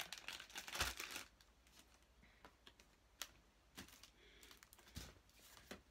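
Light handling noise from boxed and plastic-wrapped products: a short spell of rustling and clicks in the first second, then a few scattered taps and dull knocks as items are set down and picked up.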